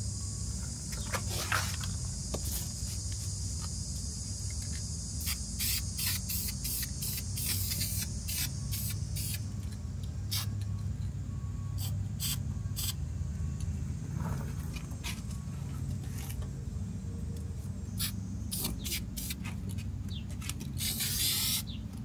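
Aerosol spray can of rust-inhibiting top coat paint hissing: one long spray at the start, then many short spurts, and another longer spray near the end. A steady low hum runs underneath.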